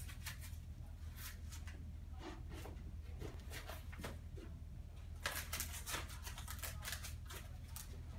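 Faint rustling and small clicks of clothing and handling as a person moves about, over a steady low hum, with a denser cluster of clicks a little past the middle.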